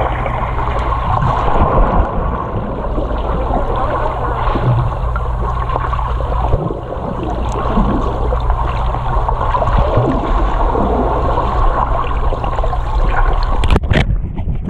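Muffled, steady underwater noise picked up by a GoPro in its waterproof housing on the bottom of a swimming pool. Near the end come a few sharp knocks as a hand grabs the camera.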